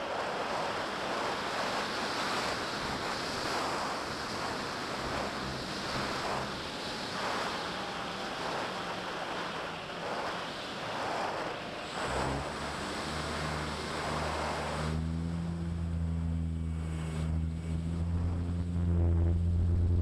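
Steady rushing of wind and propeller noise picked up by the onboard camera of a fixed-wing FPV model plane in flight. About twelve seconds in, low steady humming tones come in, and from about fifteen seconds they take over as the rush falls away.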